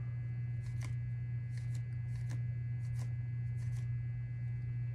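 Baseball trading cards being slid one by one off a stack held in the hand, giving faint, irregular light clicks and rustles, over a steady low hum.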